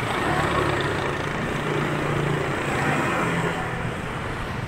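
Road traffic on a bridge: motor scooters passing close by, a low engine hum over a steady rush of road noise.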